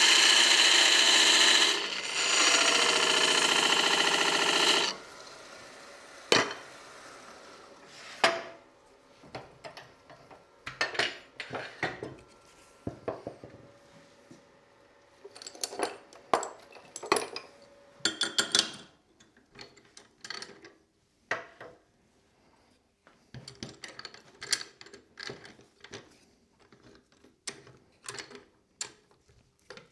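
Hand turning tool cutting a spinning ash blank on a wood lathe: a loud scraping hiss in two runs, with a short break, over the first five seconds. After that the cutting stops and there are scattered knocks and clicks of the workpiece being handled and clamped in the metal lathe chuck.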